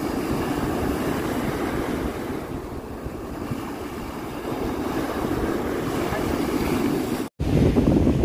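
Ocean surf breaking and washing up the sand, with wind rumbling on the microphone. About seven seconds in the sound drops out for an instant and comes back louder, with heavier wind rumble.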